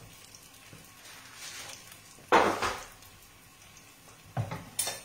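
Garlic frying in oil in a pan, a faint steady sizzle. A sudden loud kitchen knock comes about two and a half seconds in, and a few smaller knocks of handling come near the end.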